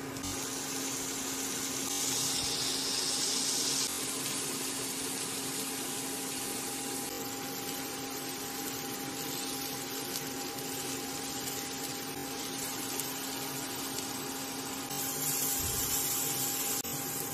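Steady hum of an induction cooktop's cooling fan and coil, with a continuous hiss of pineapple skewers sizzling in butter in a non-stick pan; the sizzle brightens about two seconds in and again near the end.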